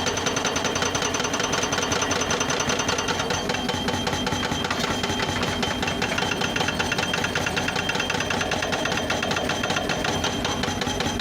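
Excavator running steadily, its diesel engine giving a fast, even clatter with a faint high whine.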